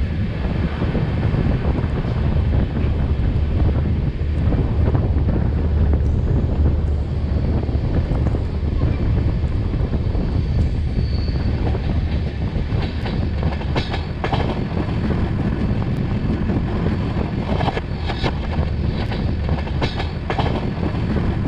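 Passenger train running at speed, heard from an open coach window: a steady low rumble of wheels on rail, with a few sharp clacks of wheels passing over rail joints in the second half.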